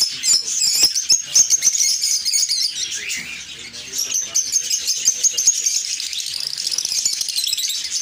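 Many caged lovebirds chirping and chattering at once: a dense, continuous stream of shrill, high chirps that eases briefly about three seconds in.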